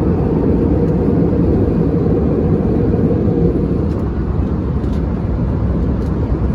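Steady cabin noise inside an Airbus A320: an even, loud rumble of engines and airflow with no distinct events.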